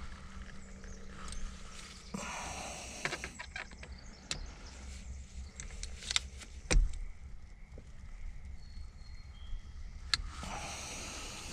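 Metal hand-tool clicks and scrapes: an Allen key working against a steering-wheel mounting screw whose hex head is stripping out, with one sharp click about two-thirds of the way through.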